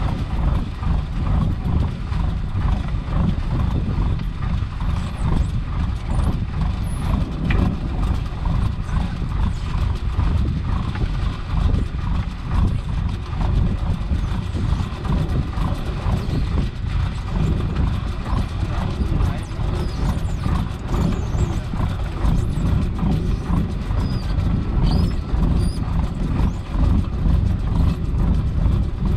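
A fishing boat's engine running steadily, with irregular clatter from the net hauler and the gillnet as it is pulled aboard.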